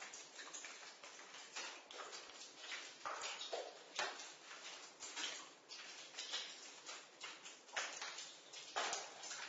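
Water dripping in a basement: irregular drops, a few a second, some louder and sharper than others, each with a different pitch.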